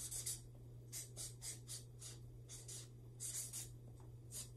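Felt-tip marker writing on a paper flip-chart pad: a run of short strokes, a few a second, over a steady low hum.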